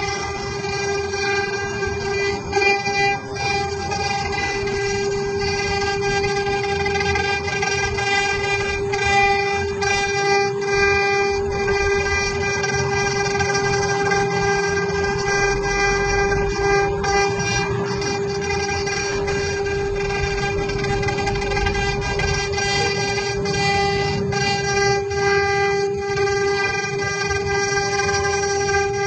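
CNC machine spindle running with a steady whine held at one pitch, over rougher noise and scattered short clicks.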